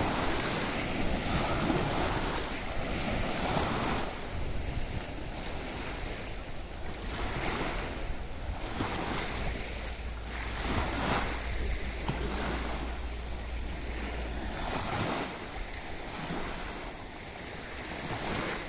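Wind buffeting the microphone in uneven gusts, with a steady low rumble through the middle that drops away about fifteen seconds in.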